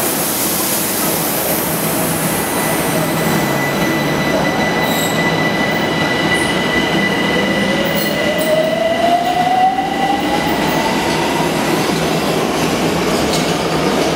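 Electric metro train pulling out of an underground station: a steady high whine, then a whine rising in pitch from about halfway through as the train gathers speed, over the running noise of the cars, with a few sharp clicks.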